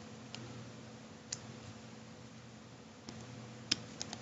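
A few light clicks of a metal loom hook against the plastic pegs of a Rainbow Loom as rubber bands are worked over them, two of them close together near the end, over a low steady hum.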